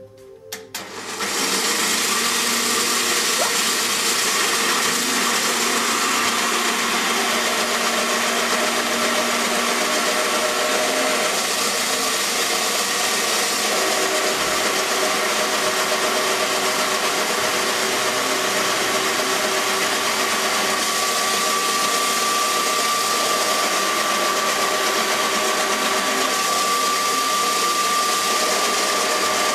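Countertop electric citrus press (juicer) switched on about a second in and running steadily: a motor hum under a loud hissing rush. Its thin whine grows stronger and rises slightly past the middle.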